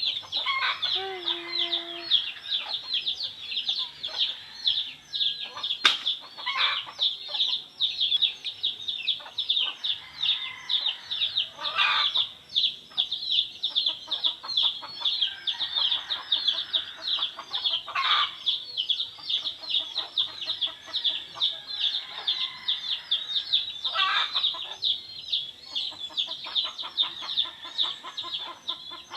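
Chickens: a continuous, rapid, high-pitched peeping, with a louder call breaking in about every six seconds.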